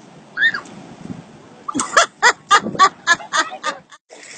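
A single short, high-pitched vocal call that rises and falls, then a quick run of about eight pitched calls, about four a second, stopping just before the end.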